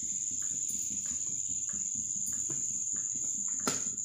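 Cricket trilling steadily at a high pitch, with faint soft pats of hands shaping a soybean cutlet mixture and one sharp click near the end.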